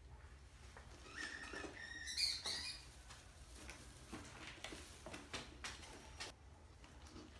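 Mice squeaking, faint: a string of short high calls about a second in, then light scratching and ticking as they scrabble over dry hay and into a plastic bottle.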